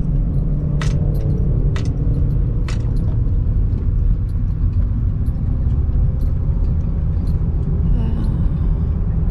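Steady low rumble of a car running, with three sharp clicks about a second apart in the first three seconds.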